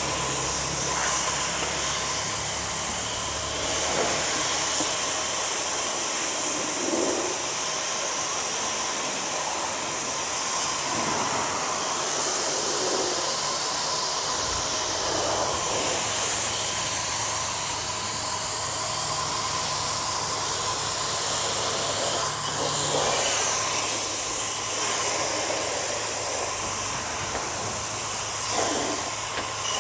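Jet from a Ballorex B7KS-CW130 2300-watt high-pressure washer spraying onto a car's body panels and glass, a steady hiss of water hitting metal and glass, with a faint steady low hum underneath.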